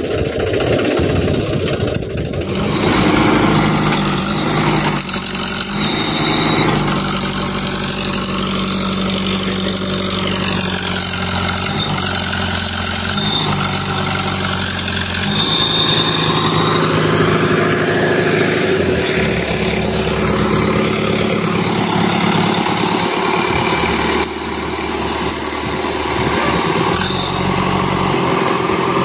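Diesel engines running: first a Mahindra B 275 DI tractor's, then a JCB 3DX backhoe loader's, whose note steps up and down several times as the machine works.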